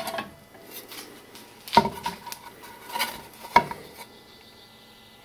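Hard metal parts clinking and knocking as they are handled on a workbench: a few sharp clinks with a short ring, the loudest about two seconds in and again near three and a half seconds.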